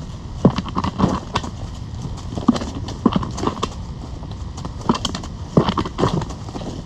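Wild turkey toms at close range making irregular clusters of short, sharp knocks and clicks, a few in quick succession at a time.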